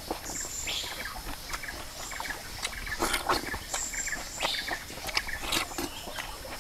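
Person eating with the mouth close to the microphone: wet chewing, lip-smacking and mouth clicks while eating grilled fish and biting into a raw tomato.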